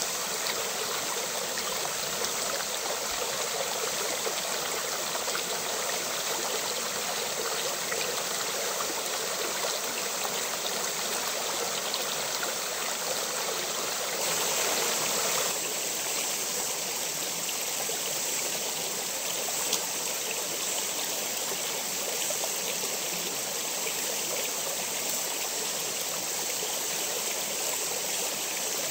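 Steady rushing and trickling of stream water. The sound shifts suddenly about halfway through, going briefly brighter and then thinner in the middle.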